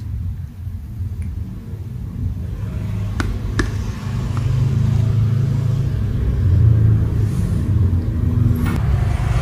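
A low, engine-like rumble that grows gradually louder, with two light clicks a little over three seconds in.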